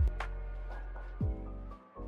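Background music: a lo-fi hip-hop beat with deep bass kicks that drop in pitch, one at the start and one just past a second in, and a sharp drum hit between them.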